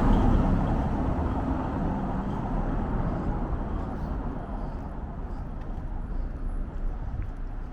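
A motor vehicle passing close by, its noise fading steadily as it moves away, over street ambience.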